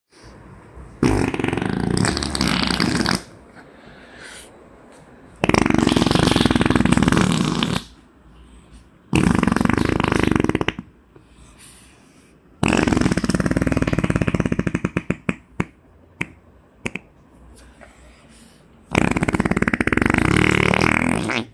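A child blowing raspberries with his mouth pressed against bare skin: five loud, fart-like blasts, each about two seconds long. The fourth trails off into a string of short sputters.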